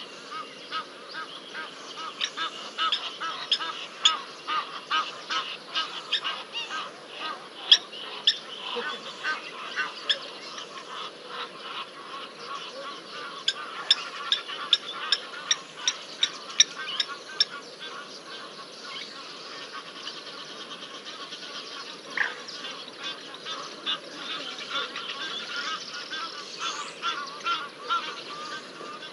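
Egyptian geese honking: a rapid run of short, harsh calls repeated over and over, easing off past the middle and picking up again near the end.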